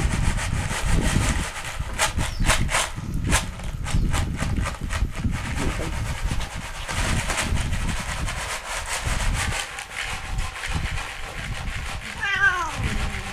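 Dry cat food rattling in a cardboard box as it is shaken, in a quick run of rattles a few seconds in, over a low rustling rumble. A cat meows once, falling in pitch, near the end.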